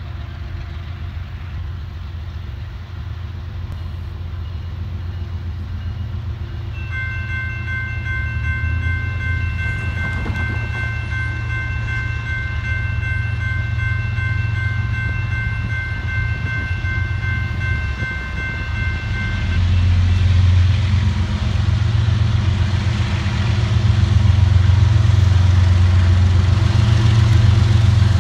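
Approaching CSX freight train's lead diesel locomotives rumbling, louder as they draw near. About seven seconds in the locomotive's chord horn sounds one long, steady blast lasting about thirteen seconds, then the engines carry on, louder toward the end.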